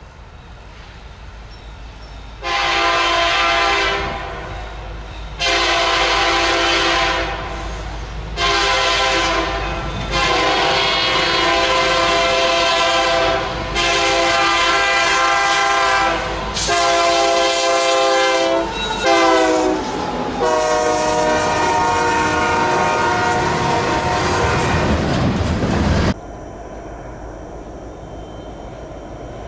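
Diesel freight locomotive's air horn sounding a chord of several tones in a series of about seven blasts, typical of a train signalling at a grade crossing as it approaches. The locomotive's rumble grows louder under the later blasts. The sound cuts off abruptly near the end, leaving a quieter steady background.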